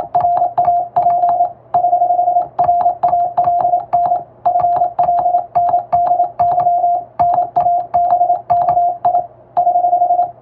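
Morse code keyed by hand on a telegraph key: a single steady tone of about 700 Hz switched on and off into quick dots and dashes, with a click at each key stroke and a few longer pauses between groups.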